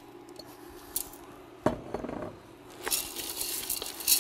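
Kitchenware clinks and a knock from a stainless steel pressure cooker pot and its glass lid, then a wooden spoon stirring soaked Great Northern beans in the pot, with a run of quick clicking rattles near the end.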